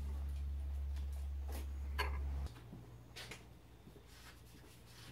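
Small clicks and light taps of a digital caliper and metal parts being handled, over a steady low hum that cuts off abruptly about two and a half seconds in.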